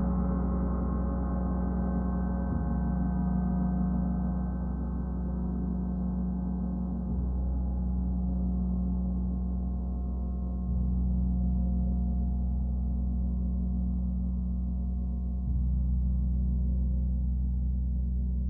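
Gong played softly as a sustained wash of deep, overlapping tones. It is gently re-struck about every four seconds, so the low hum swells again each time.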